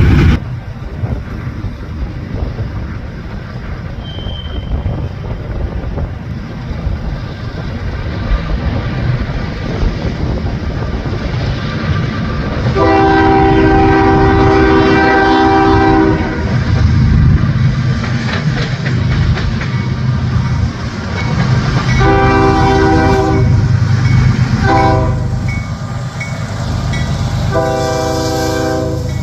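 Diesel freight locomotive's multi-chime air horn sounding over the train's rumble and wheel clatter: a long blast, a shorter one, a brief toot, then another long blast, the usual grade-crossing pattern.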